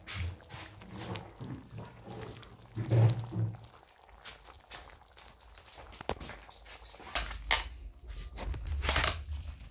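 Indistinct handling noise: scattered knocks and clicks, a short muffled low sound about three seconds in that is the loudest, and a low rumble from about seven seconds on.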